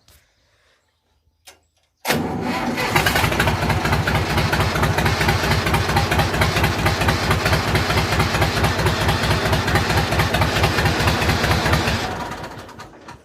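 Tractor engine on a straight-through exhaust with no muffler, starting about two seconds in. It catches at once and runs loud with a fast, even firing beat, a sound the owner calls crackling, then dies away near the end as it is shut off.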